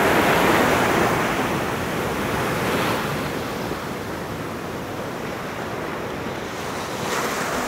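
Ocean surf breaking and washing up a sandy beach, a steady hiss that swells near the start, about three seconds in and again near the end as waves break.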